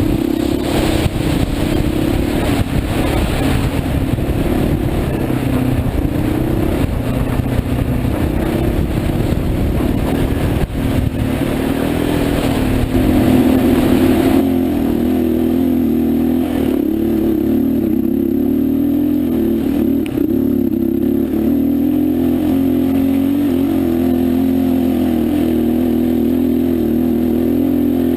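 Motorcycle engine running steadily under way, with rattling and rushing noise over the first half. About halfway through the noise drops off and the engine's hum carries on alone.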